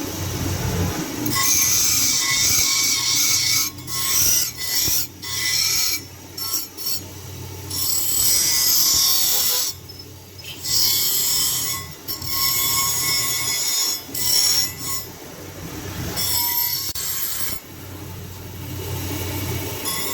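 Abrasive tool working a piece in repeated passes, each a few seconds long with brief pauses between, giving a harsh, high-pitched rasping.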